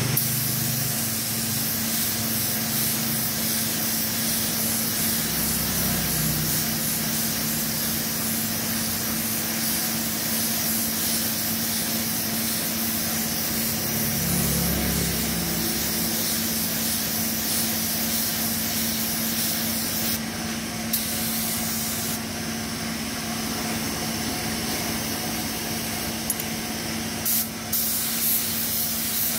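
Gravity-feed automotive spray gun hissing steadily as compressed air atomises paint, laid on in light coats for a spot repair. A steady low hum runs underneath.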